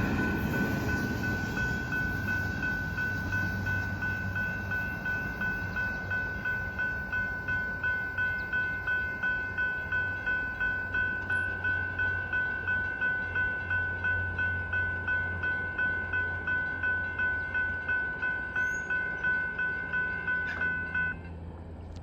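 Grade-crossing bell ringing at an even pace of about two strokes a second over the fading rumble of a passing freight train. The bell stops suddenly about a second before the end.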